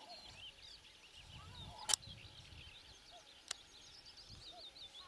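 Faint chorus of small songbirds chirping and twittering, with two sharp clicks about two and three and a half seconds in.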